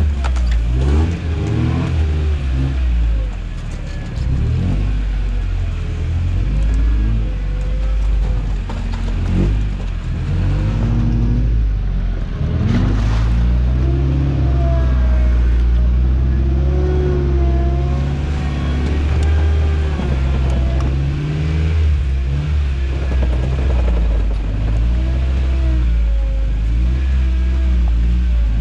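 Toyota truck engine running at low speed while driving off-road, with intermittent wavering squeaks and some clatter over it.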